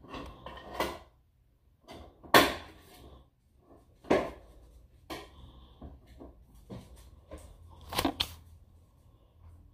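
A handful of sharp knocks and clatters from a bowl being handled and tipped to pour out slime. The loudest come about two and four seconds in, with a quick double knock near the end.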